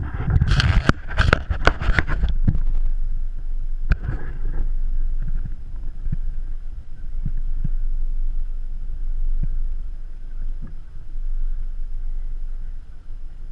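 Boat under way: a steady low rumble, heard muffled through gear lying over the microphone. In the first two seconds, and again briefly around four seconds in, gear rustles and knocks against the camera.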